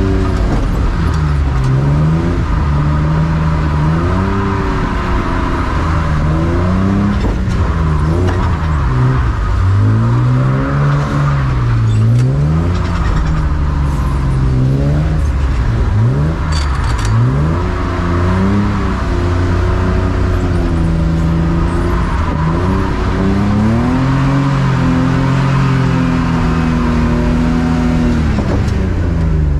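BMW E36 drift car's engine revving hard, its pitch climbing and dropping again and again every few seconds as it is driven on and off the throttle.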